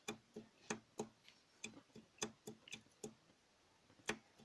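Faint, rapid metallic clicking, about two to three a second, from the connecting rod of a stripped Gilera DNA / Piaggio Leader 210 cc engine being rocked by hand on its crankpin. The rod knocks because the big-end needle-bearing cage has broken up, leaving several millimetres of play. The clicks fade and pause, then one louder click comes near the end.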